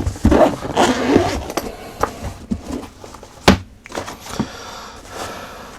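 Handling noise of packaging being opened: rustling and scraping, with one sharp knock about three and a half seconds in.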